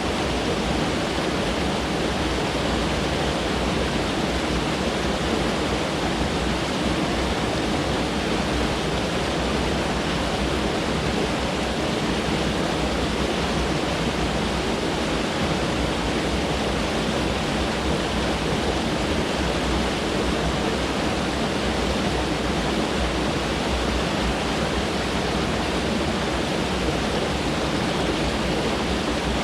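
Mountain stream rushing over rocks, a steady unbroken water noise.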